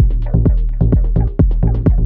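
Background music with a heavy bass beat, about two beats a second.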